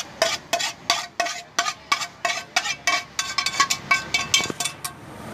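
Metal spatula scraping and knocking against a metal cooking pan, about three strikes a second and quicker in the second half, the pan ringing briefly. Cooked Maggi noodles are being scraped out of the pan.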